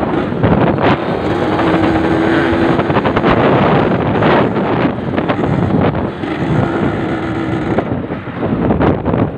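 Yamaha RX-King single-cylinder two-stroke motorcycle being ridden, its engine running under load and holding steady revs for stretches. Heavy wind buffets the microphone.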